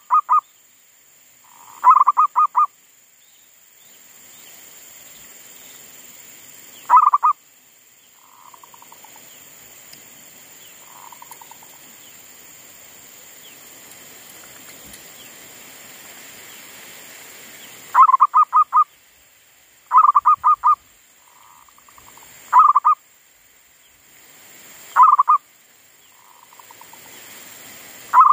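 Caged decoy zebra dove (perkutut) cooing: repeated short bouts of quick, stuttering coos, each under a second, a few seconds apart. Fainter, softer coos come in between the loud bouts.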